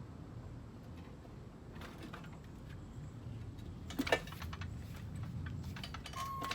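A low steady hum with two sharp metallic knocks about four seconds in, as the front subframe is lowered out of the car.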